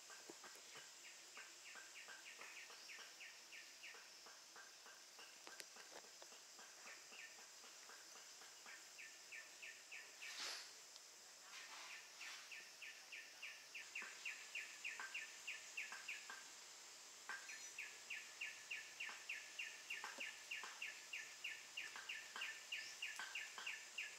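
Faint forest ambience: long runs of short high chirps repeating about four times a second, growing louder in the second half, over a steady high-pitched insect drone. A brief swish comes near the middle.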